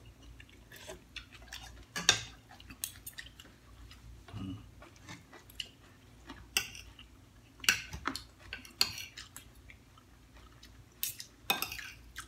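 Metal spoons and forks clinking against bowls at irregular intervals, with quiet chewing between the clinks.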